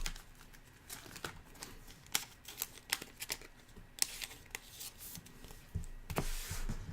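Trading cards being handled and flipped through, with soft scattered clicks and rustles, a brief swish about four seconds in and a longer one a little after six seconds.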